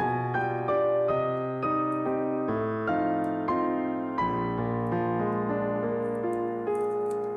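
Piano background music, a melody of notes changing about twice a second.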